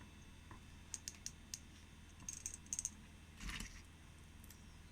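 Faint, scattered small clicks and a brief rustle of screwdriver bits and their plastic case being handled.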